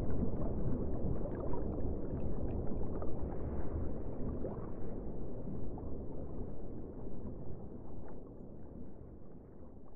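Aquarium water noise: a steady low rushing with faint scattered bubbling ticks, fading away over the last couple of seconds.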